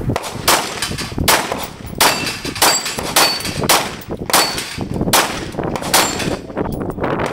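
Glock pistol firing a steady string of about ten shots, roughly two-thirds of a second apart, at steel plates that ring faintly when hit.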